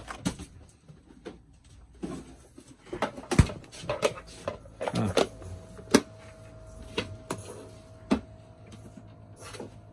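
Scattered clicks and knocks of kitchen things being handled: a plastic egg tray in the fridge door, containers and a steel mixing bowl. A faint steady tone comes in about halfway through.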